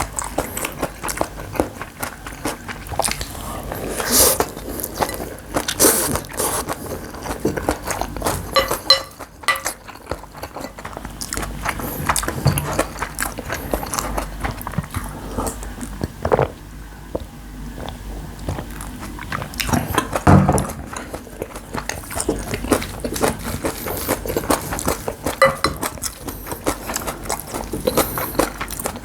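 Close-miked chewing of a mouthful of bibimbap: a steady run of wet mouth clicks and small crunches, with a few louder snaps along the way.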